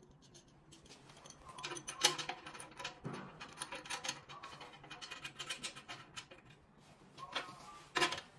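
Small stainless steel brackets, bolts and nuts clinking and rattling as they are handled and fitted onto an aluminium extrusion frame, with sharp metal clicks about two seconds in and again near the end.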